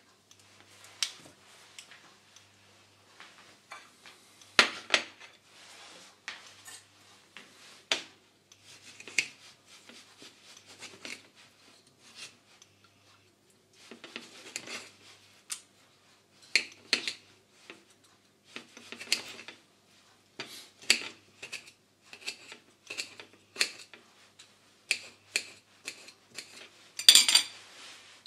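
Knife cutting a tomato into wedges on a ceramic plate: repeated short slicing and scraping strokes, with the blade clicking against the plate every second or two and a louder clatter near the end.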